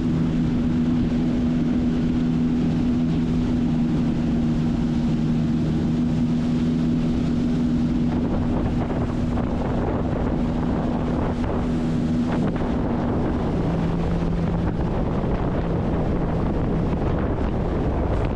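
Sea-Doo personal watercraft engine running steadily under way, with wind buffeting the microphone and water noise. The steady engine note fades partly about twelve seconds in.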